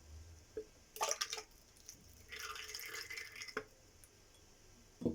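Ingredients being tipped into a blender jar: a few light knocks and clinks, and a short pour of liquid a little past the middle.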